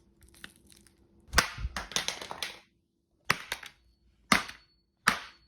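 Sharp blows and cracking of a plastic flip phone's casing and LCD being smashed apart: a hit and a run of crackling about a second and a half in, then single sharp hits about a second apart.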